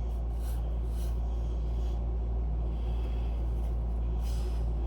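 A steady low hum with a few soft, brief hissy strokes of cleaning on the metal chime bar.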